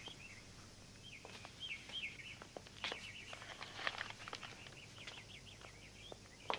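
Birds chirping in a quick, repeated pattern, with a few light clicks and knocks from the front door being opened and footsteps on the porch.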